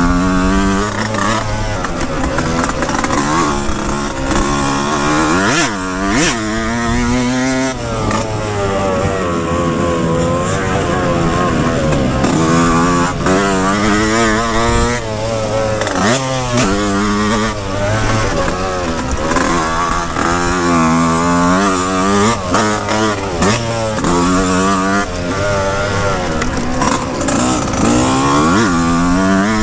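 Yamaha YZ125X's 125 cc single-cylinder two-stroke engine being raced hard, its pitch climbing and dropping again and again every second or two as the rider opens the throttle, shifts and chops it.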